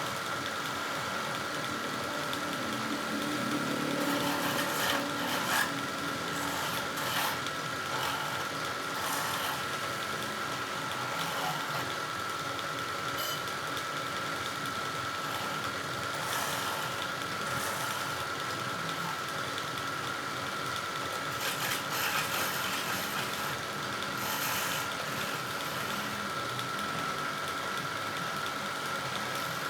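Wood lathe running with a steady high motor whine, while a turning tool cuts into the spinning wood in several scraping passes, strongest about four to seven seconds in and again about twenty-two to twenty-five seconds in.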